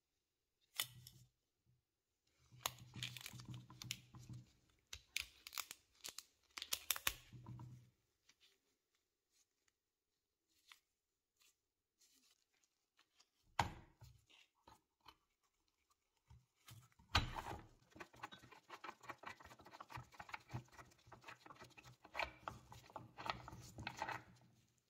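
Rusty metal parts of an antique bread cutter being handled and taken apart by hand: a click near the start, several seconds of scraping and rattling, one sharp knock about halfway, then a longer spell of scraping and clinking lasting almost to the end.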